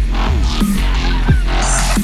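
Electronic dubstep music with heavy bass, deep dropping bass glides and a steady beat.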